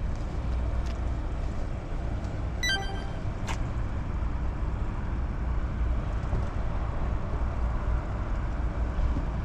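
Steady low outdoor background rumble, with a brief high electronic beep about three seconds in and a sharp click just after.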